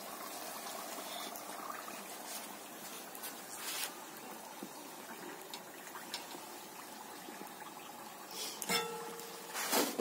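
Batuk dough rings deep-frying in hot oil in a wok: a steady, soft sizzling hiss with a few light clicks, and some brief knocks near the end.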